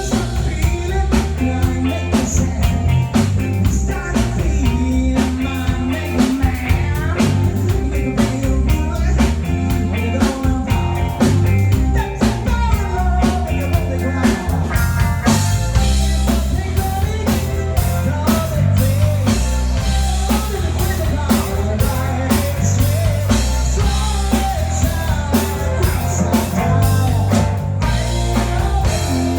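A rock band playing live: a drum kit keeping a steady beat with bass and electric guitar.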